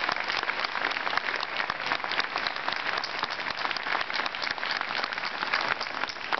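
Crowd applauding, many hands clapping at once in a steady, dense patter.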